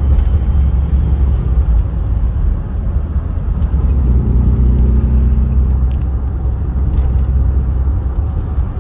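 Dodge Ram 2500's Cummins straight-six turbodiesel running under way in traffic, a low steady drone with road noise, its note shifting briefly around the middle.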